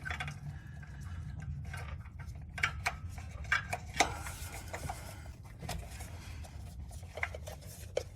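Scattered small clicks and light clinks of hands working wires into Wago lever connectors, with a few sharper snaps a few seconds in and again near the end.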